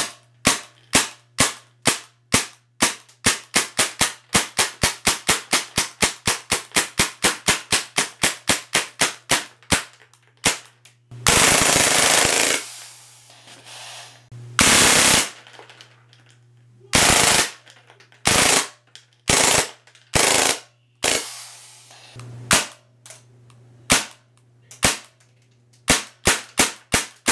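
CO2-powered MAC-11 airsoft gun firing BBs: a string of sharp single shots that quickens to about four a second, then a full-auto burst over a second long about halfway through, two shorter bursts, and more single shots near the end.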